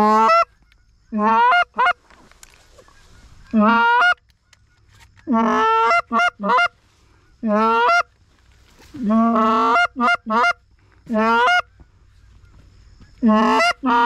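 Canada goose honks blown loud on a goose call to turn a departing flock back: about nine honks a second or two apart, each breaking from a low note up to a higher one, several followed by quick short clucks.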